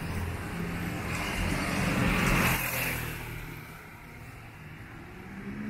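Motorcycles passing close by on a city road. The engines grow louder to a peak about two and a half seconds in, then fall away quickly as they ride off, over steady traffic noise.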